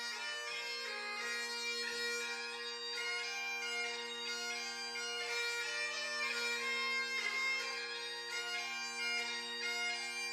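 Highland bagpipe music: a melody played over the pipes' steady drones.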